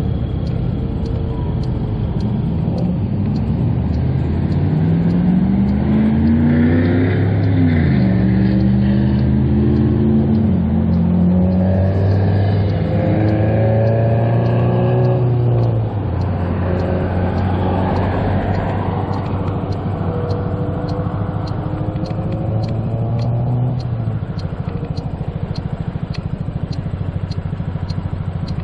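2007 Honda Ruckus 49cc scooter engine running under way: its pitch climbs as it accelerates a few seconds in, holds steady, drops suddenly about halfway as the throttle comes off, then climbs again and eases off near the end.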